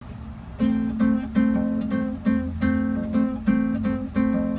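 Instrumental song intro: acoustic guitar strumming chords in a steady, syncopated rhythm, starting about half a second in.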